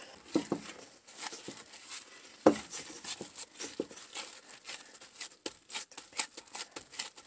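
Hands in thin plastic gloves kneading bread dough in a stainless steel bowl: irregular crinkling of the gloves as the dough is worked, with one sharper knock about two and a half seconds in.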